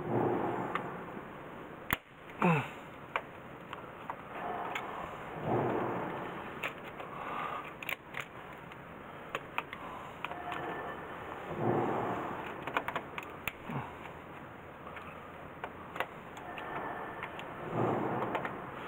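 Scattered sharp clicks and light knocks of hand work on parts and wiring in an electrical control panel, where a stuck magnetic contactor is being removed. A louder, noisy swell comes about every six seconds.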